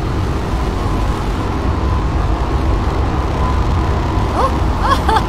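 Steady low outdoor rumble, like distant traffic and wind. A few short high-pitched calls that bend up and down come in near the end.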